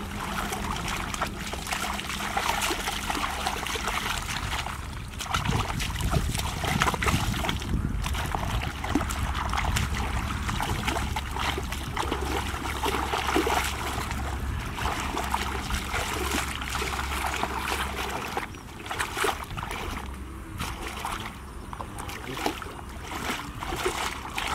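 Shallow muddy water splashing, sloshing and trickling as people wade and work through it by hand, with a low rumble from about five seconds in until near eighteen seconds.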